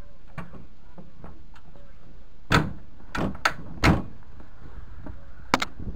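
Metal tools clanking: a wrench and a long steel extension bar knocking against the tractor's underside as they are fitted onto the transmission drain plug to loosen it. There are a few sharp knocks around the middle and one more near the end.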